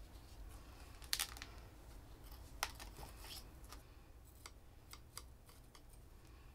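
Faint, scattered clicks and scratches of metal tweezers pressing a succulent cutting into potting soil, the sharpest about a second in, over a low steady hum.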